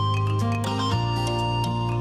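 Instrumental background music: a sustained bass note under plucked and tinkling melody notes that change about every half second.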